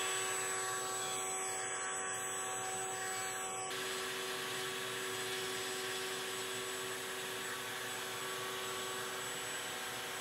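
Router with a 1/2-inch bullnose bit running at a steady whine while it cuts the end of a wooden dowel into a cone-shaped pin.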